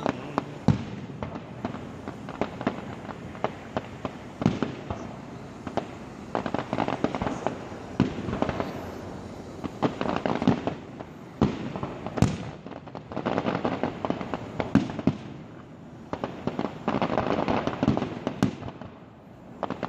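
Fireworks display: a fast run of sharp bangs from bursting shells, with stretches of dense crackling in the middle and near the end.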